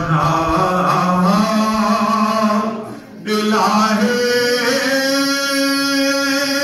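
A man singing Sufi poetry into a microphone over a hall PA, in long drawn-out, ornamented notes. His voice breaks off briefly about three seconds in, then he holds one long steady note.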